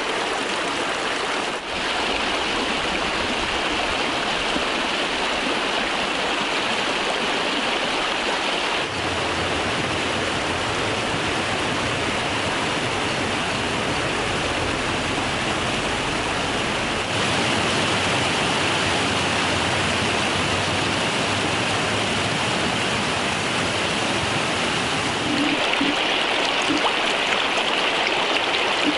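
Fast woodland stream rushing and splashing over rocks and small cascades, a steady full rush of water that shifts slightly in tone a few times.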